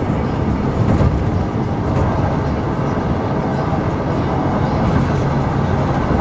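Steady road and engine noise heard inside the cabin of a moving truck, with no clear thunderclap.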